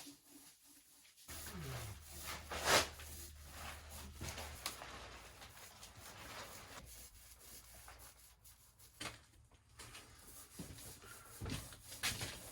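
Faint rubbing and handling noise with a few light knocks, one sharper knock about three seconds in, and a faint low hum in the first few seconds.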